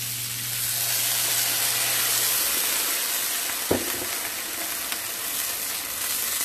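Bouillon poured into a hot pan of frying cabbage on high heat, sizzling steadily as the liquid hits the pan. There is a single knock about three and a half seconds in, and a wooden spoon stirs the cabbage near the end.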